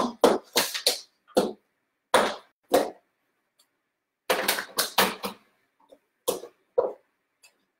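A plastic salad to-go container being handled: its snap-on lid unclipped and lifted off, with a string of short plastic clicks and knocks separated by quiet gaps, busiest around the middle.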